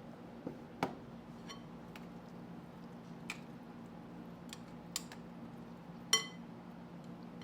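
A few light clicks and taps of kitchen utensils and dishes, with one louder clink about six seconds in that rings briefly. A steady low hum runs underneath.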